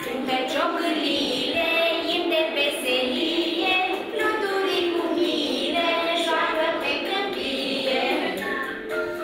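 A song sung by children's voices over a musical accompaniment.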